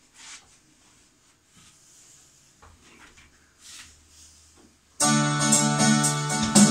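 Faint rustling and small knocks, then about five seconds in an electronic keyboard starts playing loudly in a piano voice, a melody over held chords.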